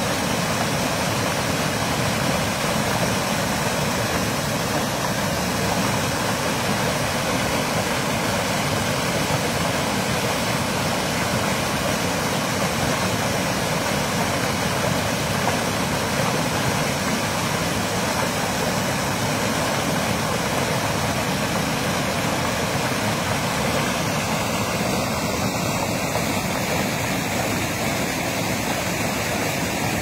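Pumped water gushing out of large outlet pipes and crashing into a stream, a steady churning rush of foaming water.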